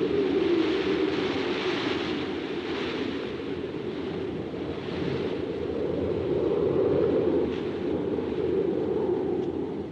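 Strong wind blowing across open grassland in gusts: a deep, continuous rushing noise that swells and eases, loudest near the start and again about seven seconds in.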